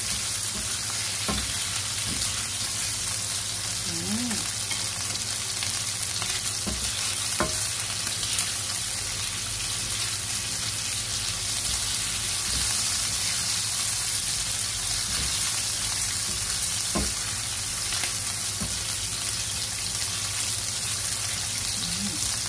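Shrimp sizzling in oil in a nonstick frying pan, steady throughout, with a few sharp clicks and scrapes of a spatula stirring them. A steady low hum runs underneath.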